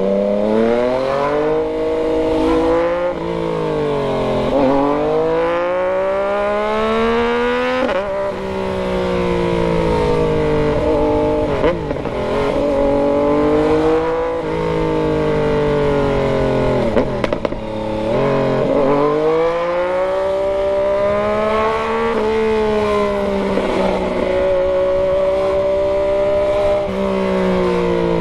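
Yamaha MT-09's inline three-cylinder engine pulling hard. Its note climbs under acceleration and drops sharply at each upshift, with slower falls where the throttle eases off, several times over.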